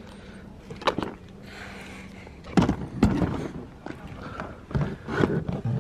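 Luggage being handled and loaded into a car's trunk: a sharp click about a second in, rustling, then several knocks and thumps of bags landing.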